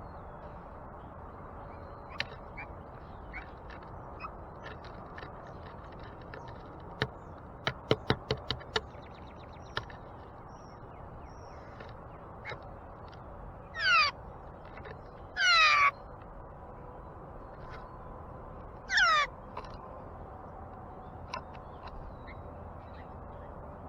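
A wild bird gives three harsh calls, each a quick run of falling notes. Earlier there is a short burst of sharp taps.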